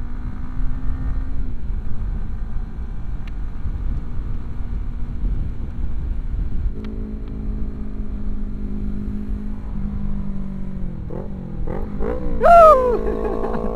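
Sport motorcycle engine running at a steady speed, under heavy low wind rumble and crackle on a microphone mounted outside the helmet. Near the end the engine pitch dips and then climbs sharply into one loud rev, with a second sport bike alongside.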